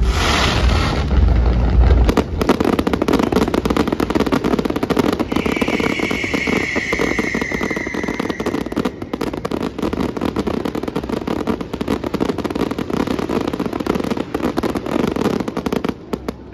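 Fireworks display: heavy low booms of shells bursting in the first two seconds, then a dense, continuous run of rapid crackling from crackle stars and cakes, stopping suddenly near the end.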